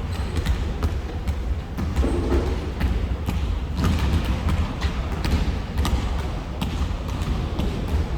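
Basketballs bouncing irregularly on a gym floor, sharp knocks several times a second over a low hall rumble.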